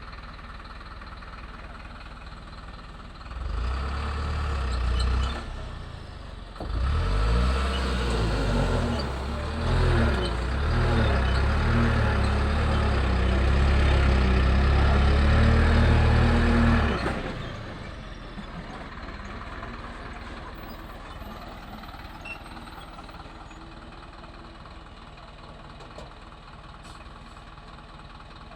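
Truck engine revving hard as the truck manoeuvres, its pitch rising and falling for about ten seconds, then dropping suddenly to a low rumble.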